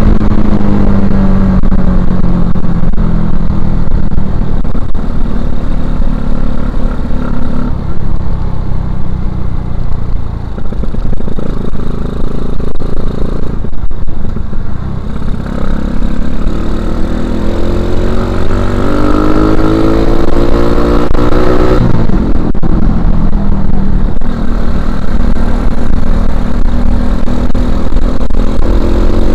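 2011 Suzuki Shogun Axelo R's single-cylinder four-stroke engine breathing through a stock Suzuki Satria FU 150 silencer while the bike is ridden. The engine note falls as the bike slows, then climbs under acceleration, drops suddenly at a gear change about two-thirds of the way through, and climbs again.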